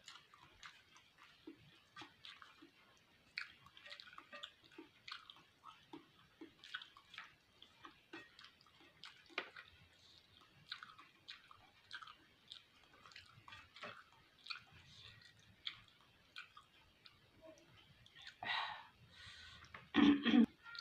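Close-up chewing of soft beef fat, with wet mouth smacks and clicks about twice a second. Two louder bursts come near the end.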